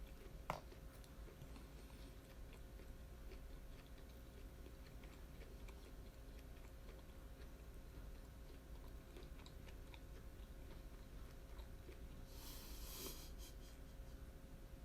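A person chewing yakitori (grilled chicken skewers) close to the microphone, quiet wet chewing with small clicks and one sharper click about half a second in. A brief soft rustle comes near the end.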